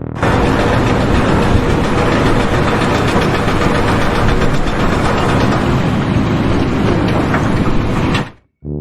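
Loud, steady mechanical noise of a running machine, like an engine or heavy power equipment, starting suddenly and cutting off abruptly.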